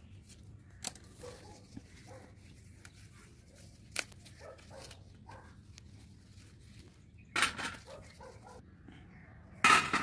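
Pruning shears snipping through eggplant stems, two sharp clicks a few seconds apart, with a dog barking faintly in the background. Two louder rustling handling noises come near the end.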